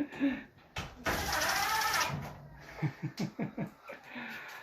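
A small electric motor whirs for about a second, about a second in, its pitch wavering, typical of a cordless drill or screwdriver driving a screw into the dryer's panel.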